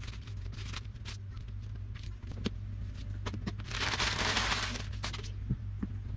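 Sheets of newspaper crumpled and balled up by hand, a loud rustle lasting about a second and a half near the middle. Light knocks and clicks of plywood pieces being handled on a workbench come before and after it, over a steady low hum.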